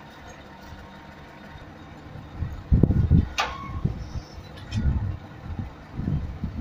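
Truck-mounted crane's engine running while it lifts a container on chains. There is a steady low hum at first, then loud, uneven low rumbling swells from about halfway in, with a brief falling squeal among them.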